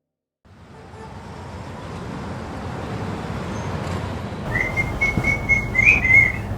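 After a brief silence, a steady low rumbling background fades in. About four and a half seconds in, a high steady whistle joins it, wavering slightly, for about two seconds.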